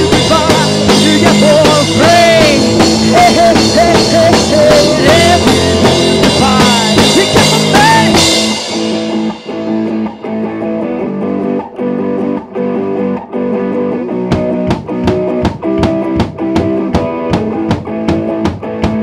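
Garage-rock band playing an instrumental break: electric guitar bending notes over drums and bass. About eight seconds in the cymbals drop out and the sound thins. A few seconds later steady drum hits build back in.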